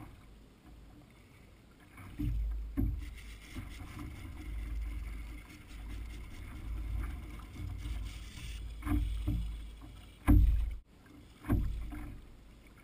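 Low rumble of wind and water around a sit-on-top fishing kayak, broken by several heavy thumps on the plastic hull, the loudest about ten seconds in.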